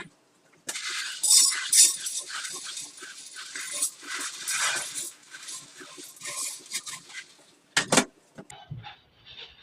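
Chickpeas tipped into a hot pan, rattling and sizzling with dense crackling as they begin to roast. A sharp knock near the end.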